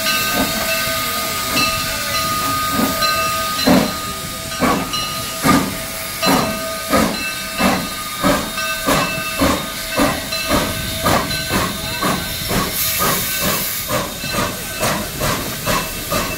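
Granite Rock Co. No. 10 steam locomotive chuffing as it pulls a passenger car, its exhaust beats speeding up from about one a second to two or three a second as the train gathers speed. Steam hisses steadily throughout, with a short sharper hiss of steam a little past three-quarters through.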